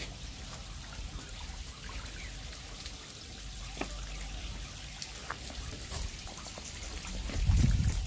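A shallow stream trickling over rock, faint and steady, with scattered small drips. A low rumble on the microphone near the end.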